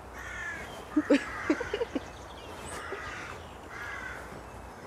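A crow cawing about four times, harsh calls spread across the few seconds, with a few short, louder low sounds between one and two seconds in.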